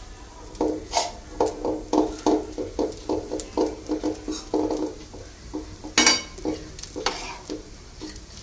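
A utensil spreading potato masala over a dosa on a dosa tawa: a quick run of short scraping strokes, about three a second, with a few sharp clicks of the utensil against the pan, the loudest about six seconds in. The strokes stop shortly before the end.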